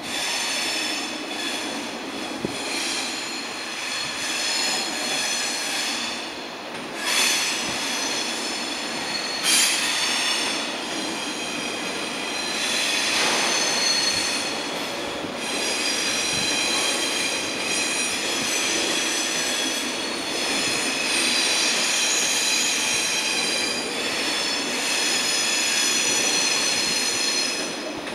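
TGV Lyria double-deck high-speed train rolling slowly through the station tracks, its wheels squealing in several high tones that swell and fade, with a few knocks over the rail joints and points.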